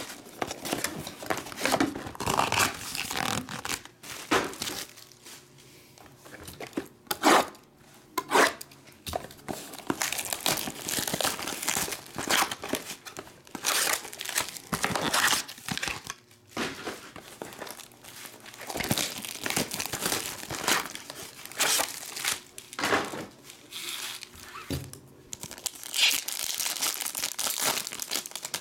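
Plastic shrink wrap being torn off a trading-card hobby box, then the box opened and its foil card packs handled: irregular crinkling and tearing, with a couple of sharper, louder rips about seven to eight seconds in.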